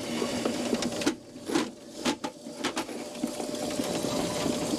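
Drill-driven flexible-shaft drain cleaner, a Ridgid K9-204, spinning its cable in a kitchen sink drain with a steady whirring rattle. It stops about a second in, a few clicks and knocks follow, and it starts again about three seconds in.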